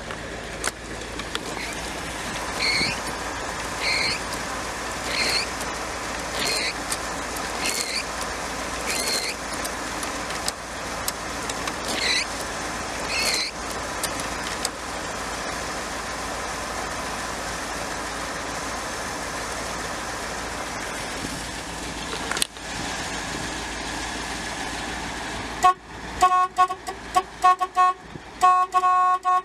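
1970 Cadillac De Ville's horn sounded in a quick string of short honks near the end, the horn check of an inspection. Earlier, a row of short high chirps comes about once a second over a steady hum.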